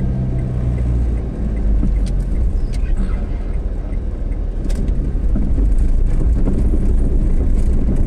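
Car running on the road, heard from inside the cabin: a steady engine hum for about the first second gives way to a low rumble of tyre and road noise, a little louder in the second half, with a few faint clicks.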